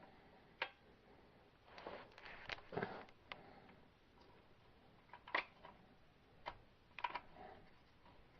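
Scattered light clicks and knocks, some in quick pairs, from an automatic transmission being nudged on a floor jack into line with the engine block.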